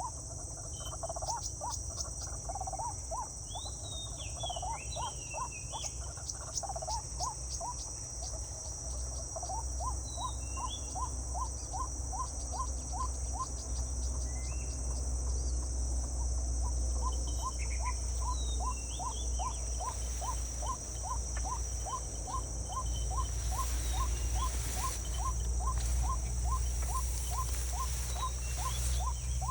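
Outdoor insect chorus, a steady high-pitched drone, with an animal's short rising call repeated about twice a second and scattered bird chirps over it.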